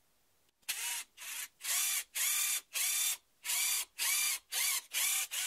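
Power drill with a 4 mm bit boring a pilot hole into a wooden board, run in short pulses of the trigger. It starts about a second in and gives about nine bursts, roughly two a second, the motor pitch rising and falling with each.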